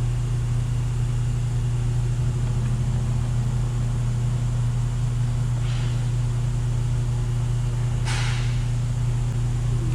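Steady low machine hum. A short scratchy noise comes about eight seconds in, and a fainter one just before six seconds.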